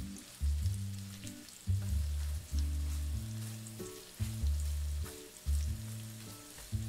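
Beaten egg sizzling in a hot nonstick frying pan as a silicone spatula stirs and scrambles it. Background music plays over it, with low plucked notes struck about every half second to second, louder than the sizzle.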